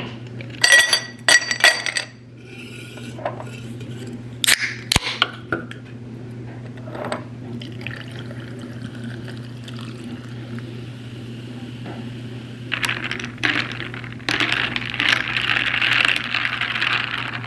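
Glassware and dishes clinking several times, sharp and ringing, then water pouring or running for the last few seconds, over a steady low hum.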